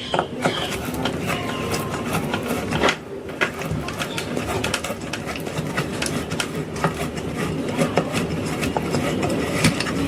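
Many irregular small clicks and knocks of tools and metal parts as a home theatre amplifier's case is opened up, over a steady background noise.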